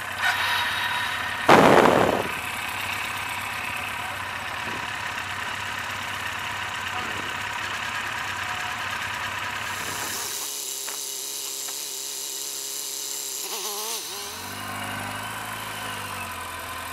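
Kawasaki KZ1000 police motorcycle's inline-four engine running at low speed through a cone course, with a brief loud rush of noise about a second and a half in. The deep rumble cuts out for a few seconds past the middle, then comes back as a pulsing low note.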